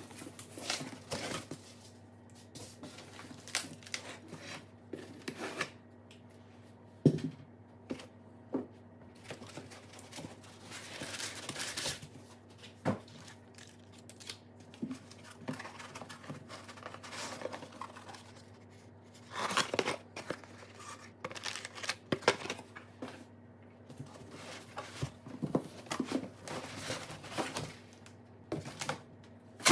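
Unpacking sounds: cardboard box flaps and foam packing blocks handled and pulled out, and plastic wrapping crinkling, with scattered knocks and scrapes.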